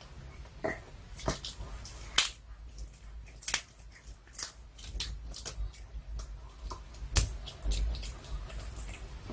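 A Pomeranian gnawing a hard duck-cartilage chew treat: irregular sharp crunches and clicks of teeth on the treat, the loudest about two seconds in and about seven seconds in.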